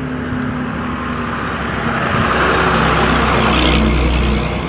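Truck engine running as it drives past close by, growing louder about two seconds in with a deep rumble, then easing off near the end.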